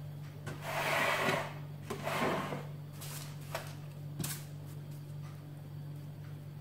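A metal baking tray dragged and turned on a kitchen countertop, making two scraping rubs in quick succession, followed by a few light knocks and clicks as the tray and the dough on it are handled. A steady low hum runs underneath.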